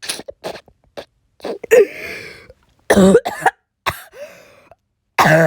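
A sick person coughing in a fit of about five separate coughs.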